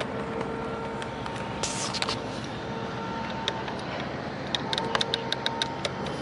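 Steady outdoor engine rumble and traffic noise with a faint low hum. About four and a half seconds in comes a quick run of around ten sharp clicks, and near two seconds a brief hiss.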